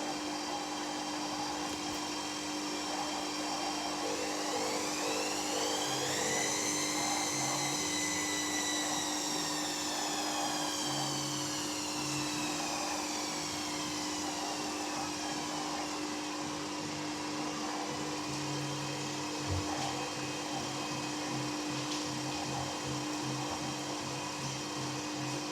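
Hoover Dynamic Next washing machine running with its drum turning over a steady hum. The motor whine rises over a few seconds, then falls away slowly, and a run of short low knocks repeats through the second half.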